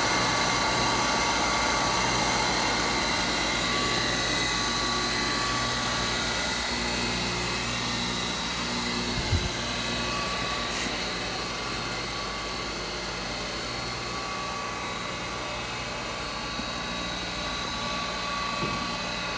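Cuttermaster FCG-30 tool and cutter grinder running steadily with a constant hum and whine, with a single knock about nine seconds in.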